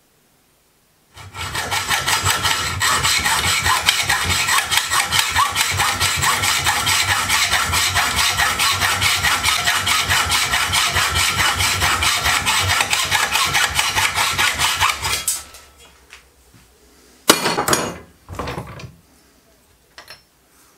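Fine-toothed hand saw cutting through a thin steel caliper beam held in a bench vise, with steady, rapid back-and-forth strokes that stop a few seconds before the end. Two short knocks follow as the vise is handled.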